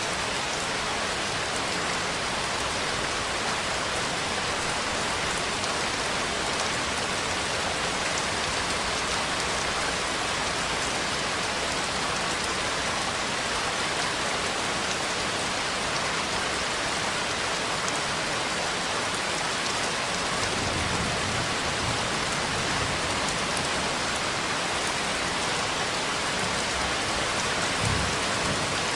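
Steady heavy rainfall with an even hiss. Low rumbles of thunder come in about two-thirds of the way through and again near the end.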